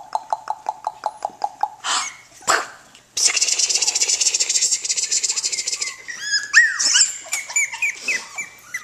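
Teddy bear puppies yapping and yipping as they play. A quick run of short yips, about eight a second, fills the first two seconds, then comes a shrill, busy stretch, and near the end whimpering calls that rise and fall in pitch.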